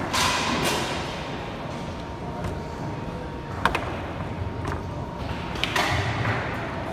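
Foosball table in play: the ball and the plastic men knocking and clacking on the rods, with one sharp clack about three and a half seconds in, over the steady hubbub of a large hall.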